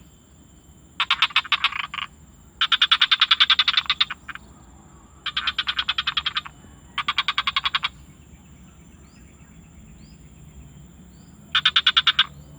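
A frog calling in bouts of rapid pulsed croaks, each bout about a second long, five times with gaps between, over a steady high-pitched whine.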